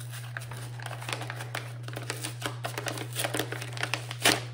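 Paper envelope being opened and handled, with irregular crinkling and rustling and a sharper crackle near the end, over a steady low hum.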